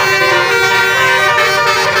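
Indonesian "telolet" bus horn of the basuri type playing a tune: several loud held horn notes sound together without a break, shifting pitch from note to note.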